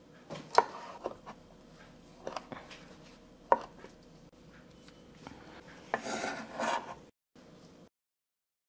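Chef's knife slicing a hot dog on a bamboo cutting board: scattered sharp knocks of the blade hitting the board. About six seconds in comes a short rasping scrape as the knife sweeps the cut strips off the board into a glass bowl.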